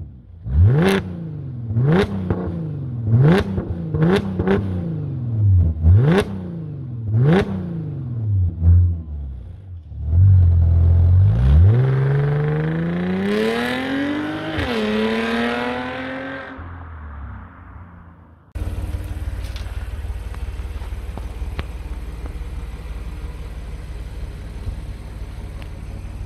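Audi S5's supercharged 3.0 TFSI V6 exhaust: seven quick throttle blips about a second apart, each pitch rising and falling. Then a hard pull away with one upshift, the sound fading as the car recedes, before a sudden cut to a steady idle rumble.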